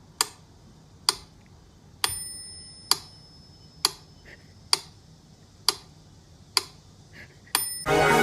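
Sharp, evenly spaced ticks, a little under one a second, like a clock ticking. A high bell-like ding rings out about two seconds in and briefly again near the end, and loud music starts right at the end.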